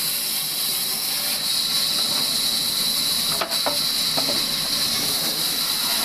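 Band saw cutting timber: a steady high hiss, broken by a brief dip and a couple of short knocks about three and a half seconds in.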